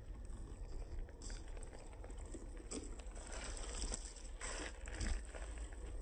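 Wind buffeting the microphone with a steady low rumble, and dry grass rustling as gusts swell and fade several times.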